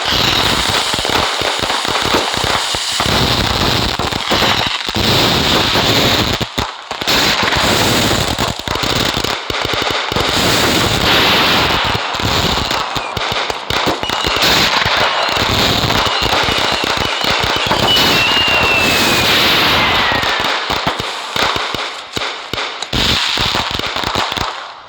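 Diwali firecrackers and fireworks going off densely, a steady mass of crackling and popping with a hissing undertone. About eighteen seconds in a whistle falls in pitch over the crackle.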